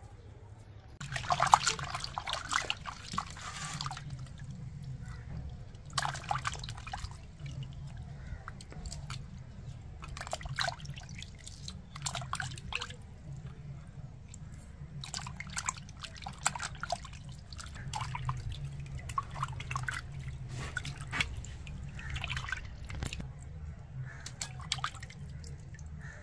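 Skinned tongue-fish fillets being washed by hand in a bowl of water: repeated splashing and dripping as pieces are rubbed and lifted out, starting about a second in, over a low steady hum.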